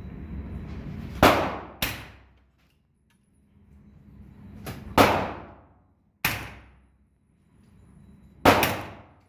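Five rifle shots from a Diamondback DB10, a .308 AR-style rifle: two in quick succession about a second in, one about five seconds in, another a second later, and one near the end, each with a short echoing tail.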